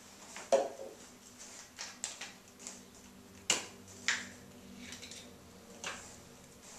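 Small plastic bottles and caps being handled and opened on a table: a few sharp plastic clicks and knocks, the loudest about half a second in and about three and a half seconds in.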